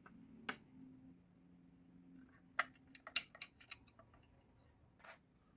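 Scattered light clicks and taps from handling a disassembled steel garage lock mechanism with a cross-shaped keyway, with a quick run of clicks about three seconds in.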